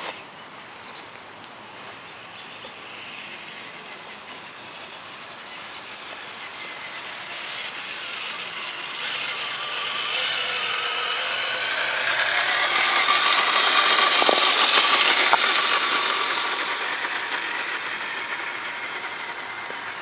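Tamiya Toyota Tundra RC truck's electric motor and gears whining as it drives along the trail. The whine grows louder as the truck comes closer, is loudest about fourteen seconds in, then fades away.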